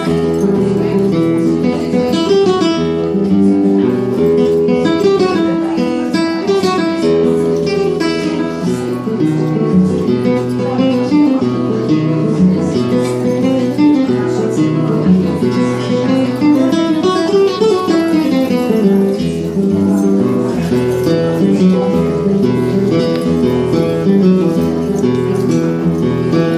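A live acoustic guitar playing flamenco-style music: a continuous run of plucked notes with strummed passages.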